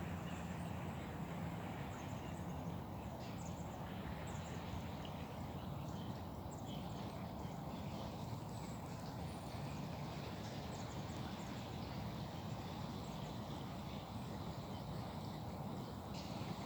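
Fast-flowing, rain-swollen river water running past, a steady low rush with many faint scattered ticks.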